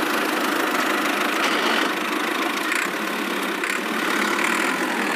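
A miniature model tractor's small electric motor and gears running steadily as it drives, a continuous even mechanical whir with no deep bass.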